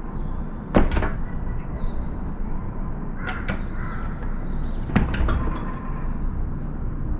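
Wind buffeting the microphone as a steady low rumble, with several sharp knocks or taps coming in pairs about a second, three and a half seconds and five seconds in.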